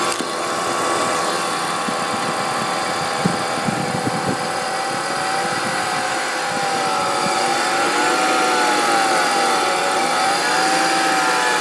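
BMW E46 325i straight-six idling with a whine from the accessory belt drive, which the owner suspects is an idler pulley. A few light knocks come about three to four seconds in, and in the second half the whine wavers up and down in pitch.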